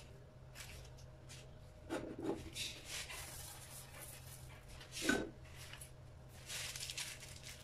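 Silicone pastry brush swishing across a non-stick pan, greasing it, in two spells of brushing strokes, with a few soft knocks, the loudest about five seconds in.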